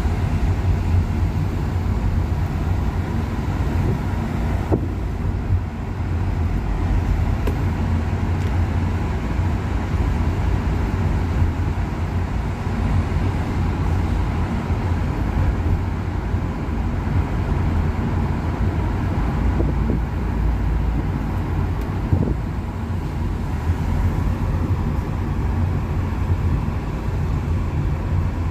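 Steady low rumble of a vehicle running, with a faint constant hum and no marked changes.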